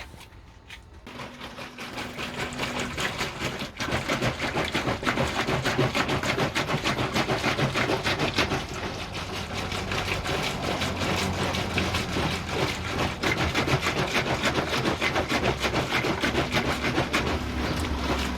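A small machine rattling rapidly and steadily. It builds up over the first few seconds, then holds until it fades just before the end.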